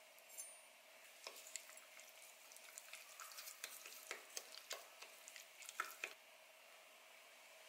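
A wooden spoon stirring thick, mayonnaise-based tartar sauce in a glass bowl, with irregular clicks and scrapes against the glass from about a second in until about six seconds in. There is a light scrape just after the start as chopped onion is pushed off a knife into the bowl.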